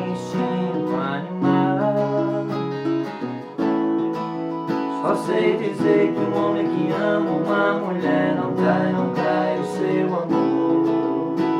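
Instrumental passage of a sertanejo song: acoustic string instruments strumming and picking a melody over a steady bass line.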